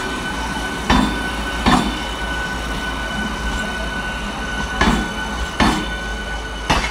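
Eastern Railway EMU local train running past, its wheels clacking over a rail joint in pairs of sharp clacks under a steady rumble and a thin, steady high whine.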